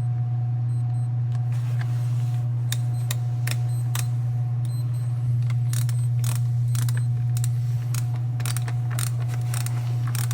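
Small scattered clicks and taps of screws being worked back into a roller bag's plastic interior panel, coming more often in the second half, over a steady low hum.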